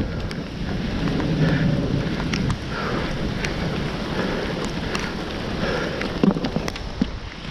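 Steady downpour of a severe thunderstorm, with scattered sharp ticks.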